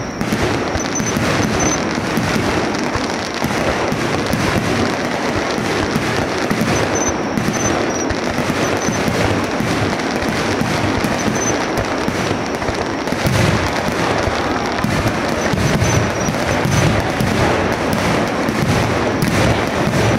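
Aerial fireworks shells bursting in a rapid, continuous barrage, the bangs overlapping with no break.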